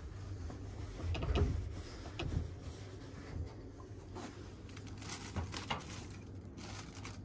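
Handling noises in a small train sleeper cabin: scattered knocks and rustles over a steady low hum, with a louder knock about a second in. Near the end, a clear plastic bag crinkles as it is handled.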